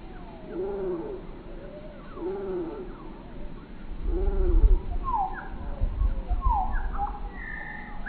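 Song sparrow singing, slowed down so the song is drawn out and deep: four slow arching notes about a second apart, then quicker falling sweeps and a held higher note near the end. A low rumble runs under the middle of the song and is the loudest part.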